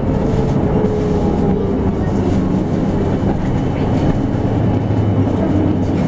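Cabin noise of a PKTS-62181 electric bus on the move: a steady low rumble of tyres and road. Over it, the faint whine of the electric traction motor slowly falls in pitch over the first second or two.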